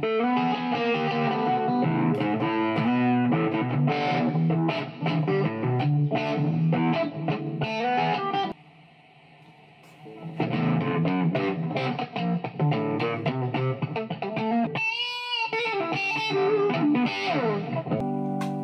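Electric guitar, a Squier Stratocaster, played with distortion: a run of picked notes, a pause of about two seconds near the middle, then more playing with a note that wobbles in pitch a few seconds before the end.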